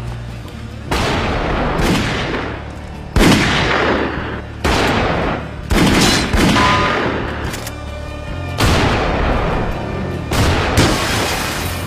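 Handgun shots fired one after another, about eight over the stretch and a second or more apart, each sudden and loud with a long echoing tail, over a low steady film-score drone.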